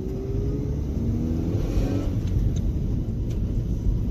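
Honda D-series four-cylinder engine pulling away and revving up under acceleration, its pitch climbing gradually, heard from inside the cabin over road rumble. It breathes through an Integra 2.5-inch exhaust.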